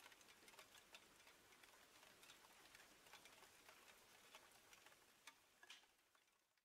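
Near silence: faint woodland ambience with scattered soft ticks, fading out near the end.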